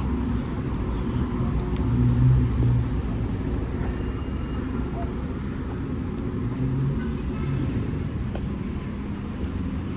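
City street traffic running by as a steady low rumble, with a vehicle passing loudest about two seconds in, under indistinct voices.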